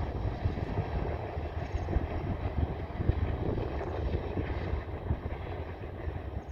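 Union Pacific diesel-electric locomotives moving slowly at a distance: a steady, uneven low rumble.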